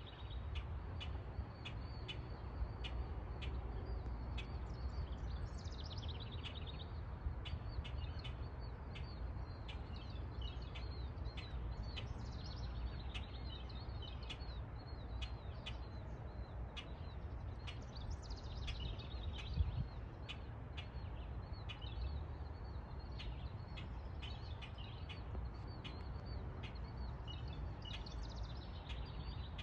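Small birds chirping. One repeats a short, sharp high note about twice a second, and others break into brief warbling phrases now and then, over a steady low background rumble.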